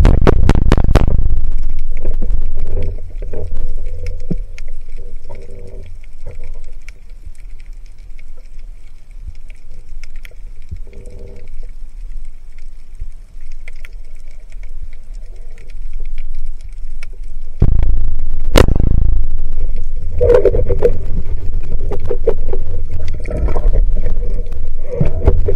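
Underwater sound through an action camera's waterproof housing: a low, muffled rumble of water moving over the housing as a freediver swims, loud at the start, quieter through the middle and loud again over the last third. About 18 seconds in, a single sharp snap of a band-powered carbon speargun being fired.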